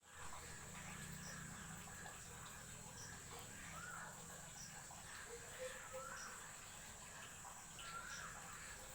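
Faint outdoor ambience: a steady high insect drone, with a short chirp repeating about every second and a half, and a few brief swooping bird calls.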